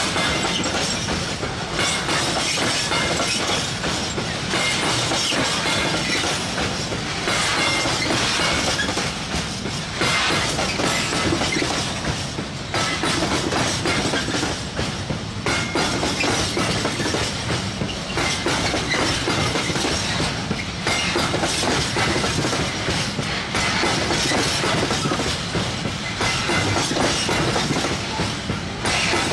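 Heavy train rolling over bad rail joints: a continuous rolling rumble with a hard clank each time wheelsets hit a joint, recurring every few seconds throughout.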